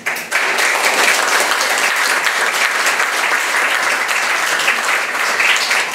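Audience applauding: dense, steady hand clapping that breaks out suddenly at the start.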